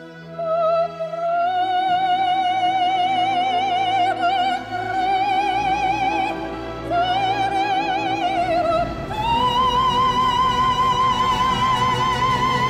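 Background music: a solo operatic voice singing long held notes with wide vibrato over steady accompaniment, moving up to a higher sustained note about nine seconds in.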